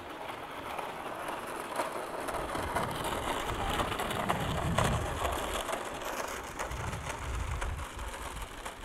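Hard plastic wheels of a child's big-wheel style tricycle rattling and grinding along a concrete sidewalk, a dense crackling noise that is loudest around the middle.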